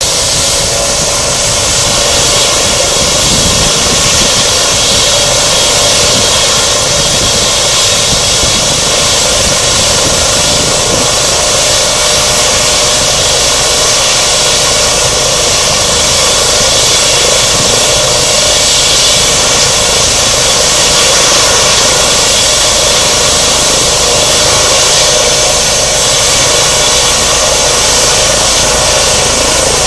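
Eurocopter EC135-type air ambulance helicopter on the ground with its turbine engines running, main rotor turning slowly at idle. A loud, steady turbine whine over a rushing hiss, holding the same pitch throughout.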